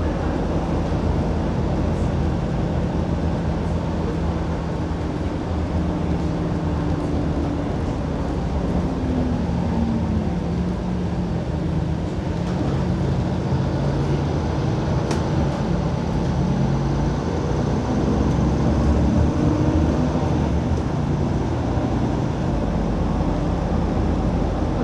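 City bus under way, with steady engine and road noise heard from the passenger cabin. The engine note shifts up and down in pitch a few times, and there is one sharp click about fifteen seconds in.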